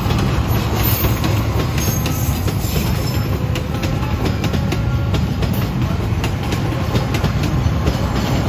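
Passenger coaches of a KAI train rolling past at speed: a steady low rumble with irregular clicks and clacks from the wheels on the rails.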